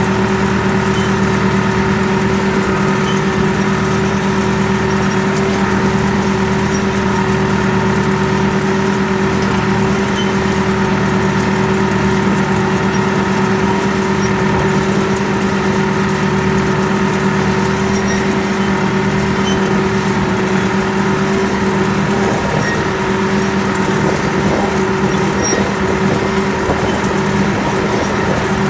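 Mahindra 4500 tractor's 45-horsepower diesel engine running loud and steady while pulling a wheel hay rake, with an unchanging drone.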